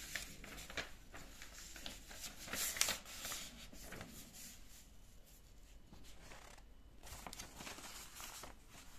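Sheets of paper rustling as they are handled and shifted, in irregular bursts with the loudest rustle about three seconds in and more near the end.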